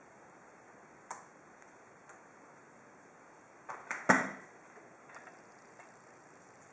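A light click about a second in, then a couple of clicks and one louder knock about four seconds in, from equipment being handled and set up; otherwise quiet room tone, with the scroll saw not yet running.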